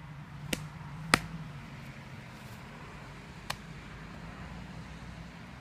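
A pitched softball smacking into a catcher's mitt about a second in: one sharp pop, with a fainter click just before it and another a few seconds later, over a low steady hum.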